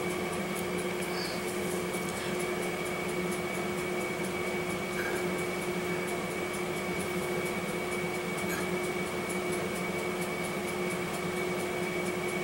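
Steady mechanical hum of room background noise with a low and a high constant tone, unchanging throughout; no distinct handling sounds from the clay work.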